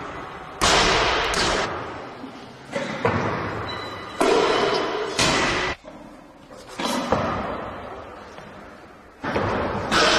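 Loaded barbells with bumper plates being dropped onto the lifting platform, a string of heavy thuds at uneven intervals, each trailing a long echo in the big hall.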